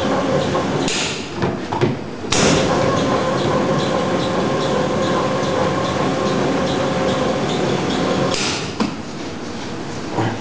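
Electric pastry dough sheeter running with a steady mechanical hum as its conveyor belts move the dough. The motor stops briefly about a second in, starts again with a sharp clatter at about two seconds, and cuts out near the end.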